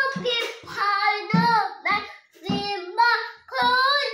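Young child singing a religious song in Khasi, unaccompanied, in short high-pitched sung phrases with brief breaths between them.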